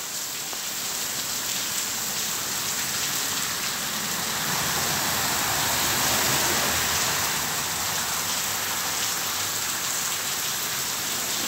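Heavy rain falling on the street and paving, a steady hiss. About four seconds in, a car passes through the water in the road, its tyres swishing and the sound swelling and fading by about seven and a half seconds.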